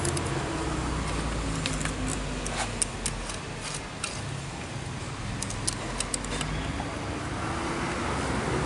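Scattered light metallic clicks and clinks of a hand tool and small screws as the electric assist motor is fitted to the steering column with four small screws, over a steady low hum.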